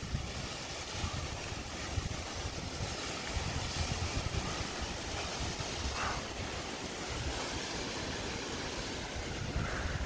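Steady rushing of a large waterfall, with wind buffeting the phone's microphone in low gusts.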